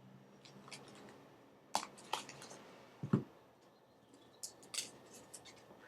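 Tarot cards being handled and turned over: a few crisp snaps and clicks of card stock in two clusters, about two seconds in and again past four seconds, with a duller thump in between.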